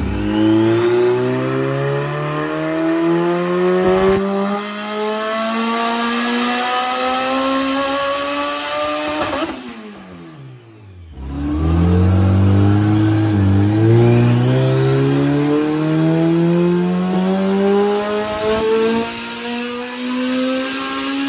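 Turbocharged Honda B16A3 1.6-litre VTEC four-cylinder making full-throttle pulls on a chassis dyno with only a 3-inch up pipe for exhaust. The engine note climbs steadily for about nine seconds with a rising turbo whine above it, drops away about halfway through, then climbs again through a second long pull.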